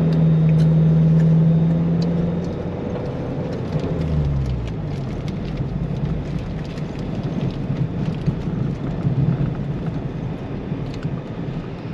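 4x4 vehicle's engine running at steady high revs, then easing off about three seconds in and carrying on at lower, uneven revs, with scattered ticks and rattles throughout.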